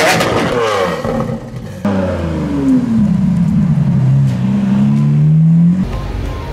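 Sports-car engine revving, its pitch gliding up and down through several revs, then falling and climbing again before cutting off suddenly near the end.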